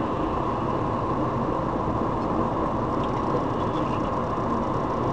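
Steady road and engine noise inside a moving car, picked up by a dashcam's built-in microphone.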